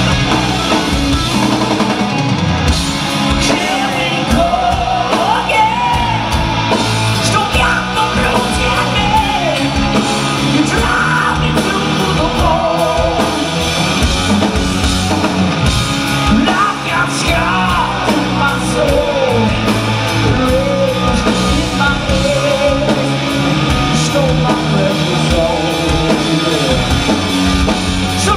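Hard rock band playing live: distorted electric guitar over bass and drums, at full volume.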